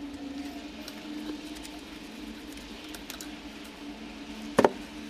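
Hands handling a power tool's plastic multi-pin plug and its matching round cable connector: small plastic clicks and rubbing, with one loud sharp knock about four and a half seconds in.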